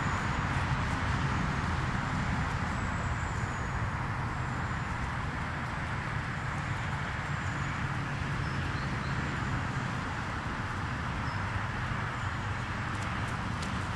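Steady rushing outdoor noise over a low rumble, with a few faint high bird chirps.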